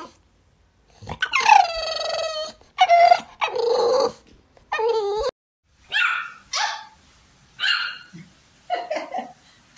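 An American Bully puppy howling and whining, first one long cry that slides down in pitch and then holds, then several shorter cries. About six seconds in, a small chihuahua gives a few short, high yaps.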